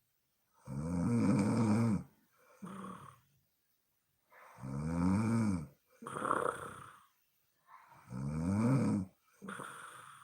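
A woman snoring in her sleep: three loud snores on the in-breath, each with a wavering pitch, coming every three to four seconds. Each snore is followed by a shorter, softer breath out.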